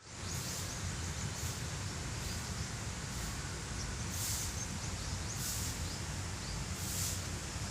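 Outdoor ambience of small birds chirping over and over in short high notes above a steady low rumble.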